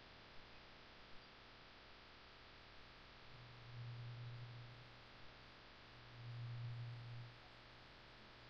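Near silence: faint recording hiss with a low electrical hum that swells up twice and fades again.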